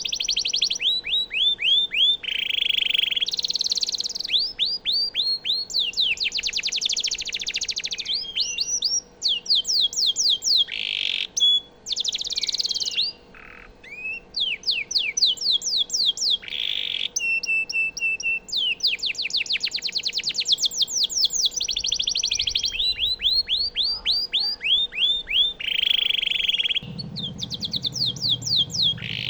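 Domestic canary singing a long unbroken song: fast trills of quickly repeated sweeping notes that switch to a new trill every second or two, with harsh buzzy phrases in between. A low hum comes in near the end.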